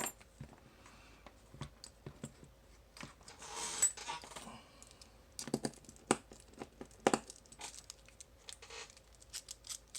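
Scattered metallic clicks and taps from a padlock, a clone of the American 1100 made by The Club, being handled with its key and tools as it is taken apart, with a short scraping rustle about three to four seconds in.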